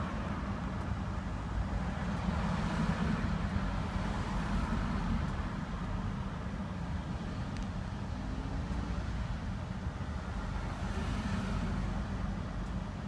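Range Rover P38's 4.6-litre V8 engine running steadily, with a constant low rumble and no breaks in the sound.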